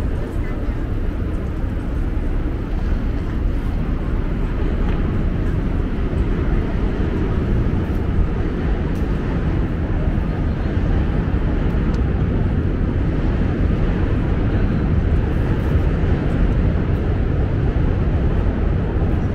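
City street ambience: a steady low rumble of traffic, with no single event standing out.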